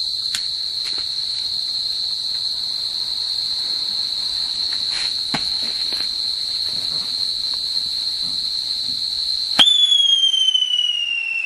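Steady high trill of crickets with a few faint clicks, until a Standard Fireworks Whiz Wheel whistling chakri catches about nine and a half seconds in. It gives a sudden loud whistle that slides slowly down in pitch.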